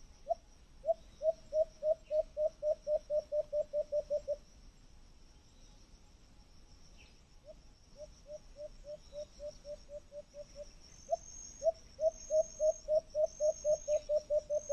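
An animal call: runs of short, evenly repeated low notes, about five a second. It comes in bouts several seconds long, the middle bout fainter. A faint high steady trill runs behind it.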